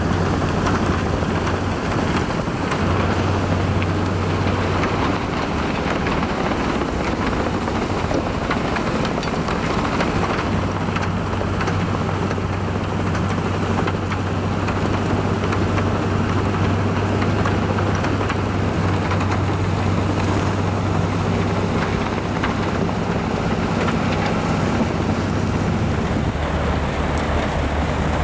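Railway snowplow on a locomotive ploughing through deep snow: a steady low engine drone under a constant rushing hiss of snow being thrown aside, with snow spray blowing past close by.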